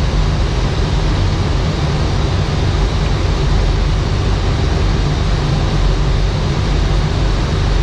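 Steady flight-deck noise of an Airbus A319 in flight on approach: an even rush of air with a low rumble underneath and a faint high whine held throughout.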